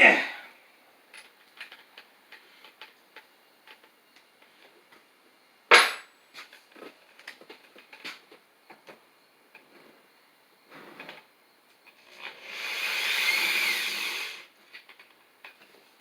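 Metal bench-vise parts being handled on a workbench: a sharp knock at the start and another about six seconds in, with light clicks and taps between. Near the end a power drill runs for about two seconds, speeding up and winding down.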